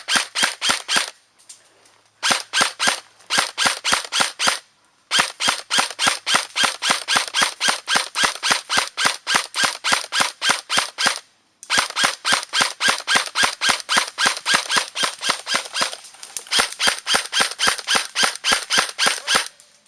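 Airsoft gun firing close by in long steady strings of sharp shots, about six a second. There are four runs with brief breaks between them; the longest lasts about six seconds.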